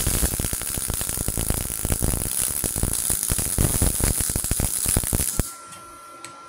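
MIG welding arc from a Multipro MIG-MAG 200S G-SP inverter welder laying a bead on steel: a loud, continuous crackle with spatter that cuts off suddenly about five and a half seconds in.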